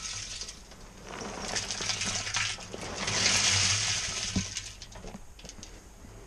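Crushed biochar pouring out of a plastic tub into a barrel of urine, the small chunks rattling and clinking as they slide and land, in two rushes around the middle, the second louder.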